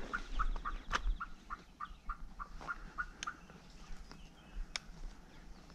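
Turkey calling: an even run of short, pitched yelp-like notes, about five a second, that fades away a little over three seconds in. A few sharp clicks are heard along with it.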